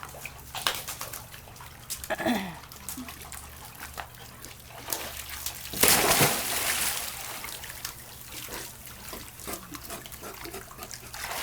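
Dogs moving in a swimming pool: water sloshing and dripping with small splashes, a short dog sound about two seconds in, and one loud splash about six seconds in.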